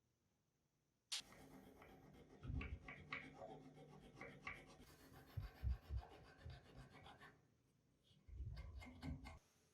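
Hand scrubbing or abrading on the metal parts of an antique potato slicer, in uneven rubbing strokes. It starts suddenly about a second in, runs for about six seconds, pauses, and comes back briefly near the end.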